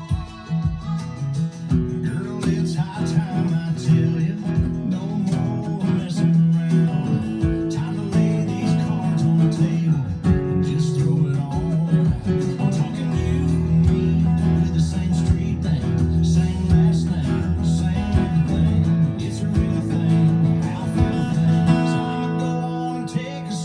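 Acoustic guitar strummed in a steady rhythm, playing a chord progression with the chords and bass notes changing as it goes.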